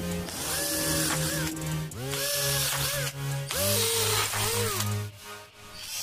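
Cordless drill driving screws into PVC bars, its motor whirring in about three short runs that each speed up and slow down, over background music.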